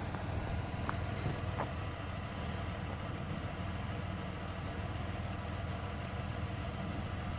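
A 2008 Chevrolet Impala's engine idling steadily, a low even hum with no change in speed.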